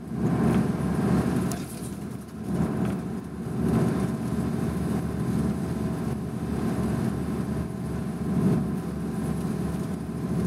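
Coach bus engine and road noise heard from inside the passenger cabin, a steady low rumble that swells and eases every second or two.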